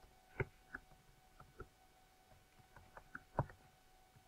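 Computer keyboard keystrokes: a dozen or so separate, irregular key taps as a word is typed, two of them louder, over a faint steady hum.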